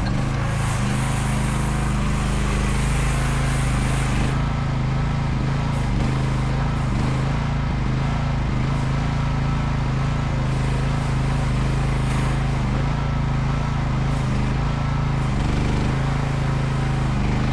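Chinese mini excavator's engine running steadily at working speed, a constant low drone.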